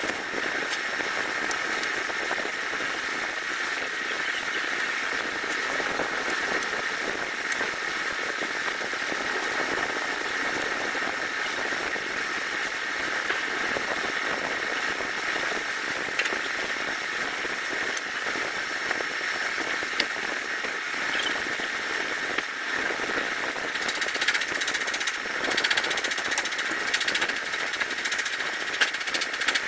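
Steady mechanical running noise with a hiss, joined by scattered light taps and clicks in the last few seconds.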